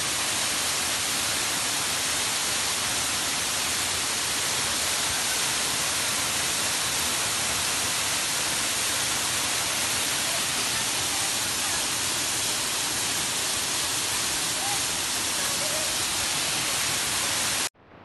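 Waterfall pouring into a plunge pool: a loud, steady rush of falling water that stops abruptly near the end.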